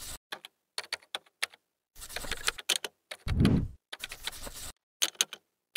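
Keyboard typing sound effect: clusters of quick key clicks with short pauses between them, and one loud low thud about three and a half seconds in.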